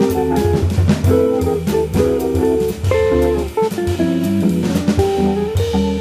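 Jazz organ-trio recording: a jazz guitar playing quick single-note lines over a Hammond organ bass line and a drum kit with cymbals.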